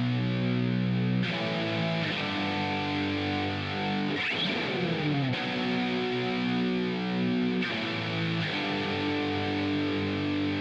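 Music demo track played through the SPL Iron mastering compressor plugin: sustained distorted electric guitar chords, with a falling pitch glide about four seconds in. The brightness of the top end jumps abruptly a few times.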